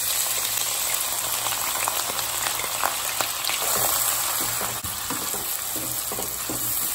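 Chopped onions sizzling in hot oil in a nonstick kadai. The sizzle starts suddenly as they go in, with the scrape of a spatula stirring them against the pan.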